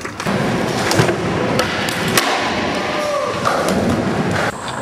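Skateboard wheels rolling over concrete, with several sharp clacks of the board hitting the ground about a second in and again shortly after. The sound changes abruptly twice as the footage jumps between clips.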